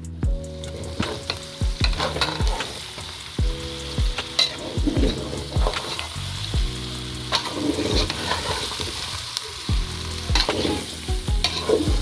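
Food sizzling in a hot pan, with a spoon scraping and stirring it every second or so. Background music with a steady deep beat plays along.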